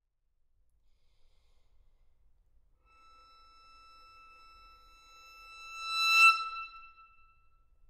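Violin holding a single high sustained note that enters softly about three seconds in, swells to a loud, noisy accent about six seconds in, then fades away.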